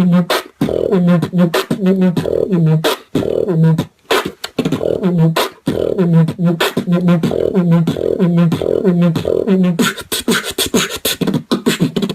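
Beatboxing: a steady rhythm of mouth-made kick and snare clicks with a pitched, buzzing hum on the beat, breaking into a fast run of clicks near the end.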